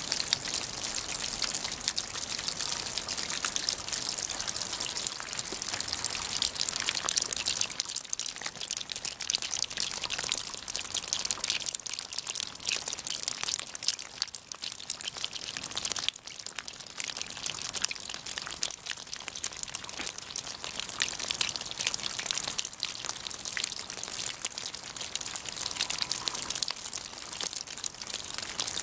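Snowmelt dripping from the eaves of a thatched roof onto wet stones and gravel: a dense, steady patter of many drops.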